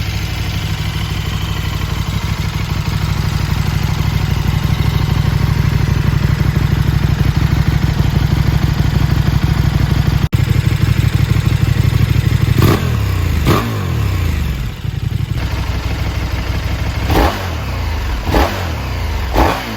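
KTM 1290 Super Duke R's V-twin engine with an Akrapovič silencer, idling steadily. About two-thirds of the way in it gives five quick throttle blips, each rev rising and falling back sharply.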